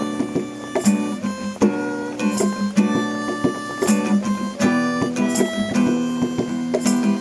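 Acoustic guitar playing: plucked and strummed notes in a steady rhythm, an instrumental passage of an improvised song.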